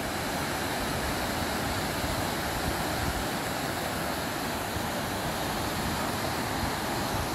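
River water rushing steadily over rocky shallows and small rapids.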